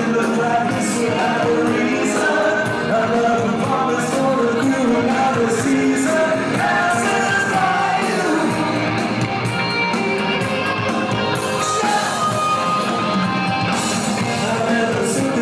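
Live rock band playing: a male lead vocal singing over electric guitars, bass guitar and drums with regular cymbal hits, heard from among the audience in a large hall.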